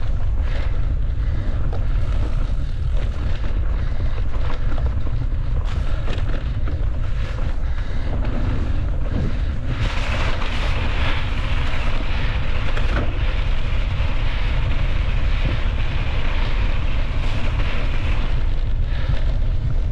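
Wind buffeting a camera microphone during a mountain-bike ride, a steady low rumble, with a louder rushing hiss for about eight seconds from halfway through.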